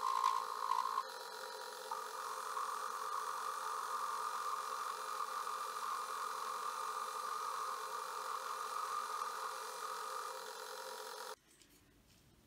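Atlas metal lathe running while its tool turns down an aluminum blank: a steady hum. It is a little brighter in the first second while a brush scrapes chips off the spinning work, and it cuts off abruptly about a second before the end.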